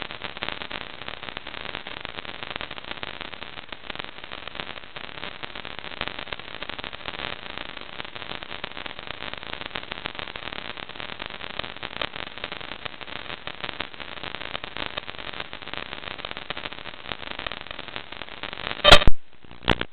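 Steady hiss of analog FPV video-receiver static captured by the goggles' DVR while there is no video signal. Near the end it gives way to a couple of sharp, loud crackles.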